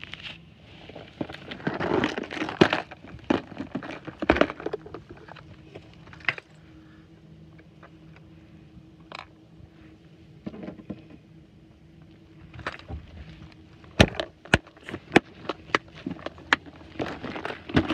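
Handling noise of a phone camera being carried around a fishing boat: rustling, knocks and clicks, busiest in the first few seconds and again in a run of sharp clicks from about 14 s on. A faint steady hum runs through the quieter middle.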